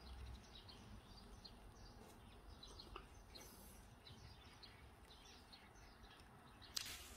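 Faint chirping of small birds outdoors, many short high chirps over a low background hum. Near the end a sudden click, then a louder hiss sets in.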